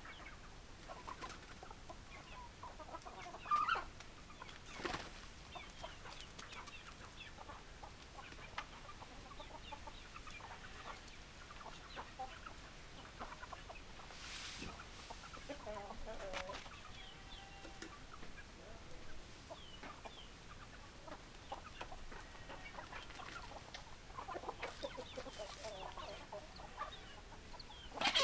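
A flock of domestic hens clucking, many short calls overlapping, with a louder call about three and a half seconds in and another near the end.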